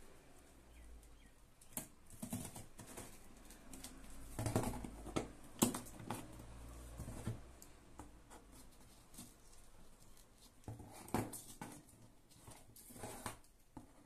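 Scissors cutting and scraping through packing tape on a cardboard box: irregular scratches, rustles and sharp clicks, busiest about a third of the way in and again near the end.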